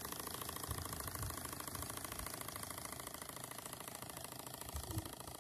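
Small steam engine of a model steam launch running, a rapid even chuffing beat. A couple of brief low thumps about a second in and near the end.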